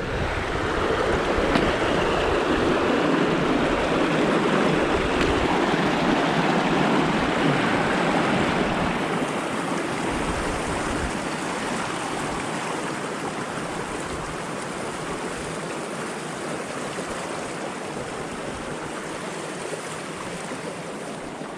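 Mountain creek rushing, a steady wash of running water that is loudest over the first half and grows gradually fainter through the second half.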